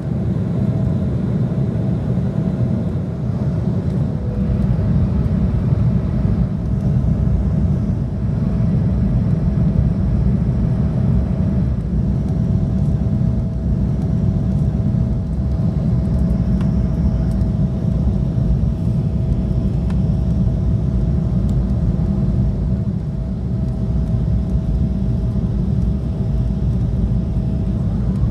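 Jet airliner cabin noise on descent, heard from a window seat over the wing: a steady, even rumble of engines and airflow with a thin steady tone above it.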